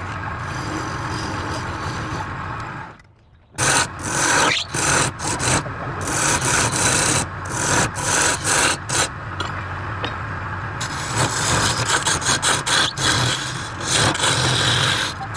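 Wood lathe running with a steady motor hum while a tool scrapes against the spinning wood in irregular passes. The sound drops out briefly about three seconds in.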